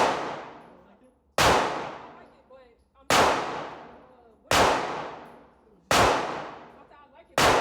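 A gun fired in single shots, about one every second and a half, six in all. Each shot is sharp and dies away in a long echo.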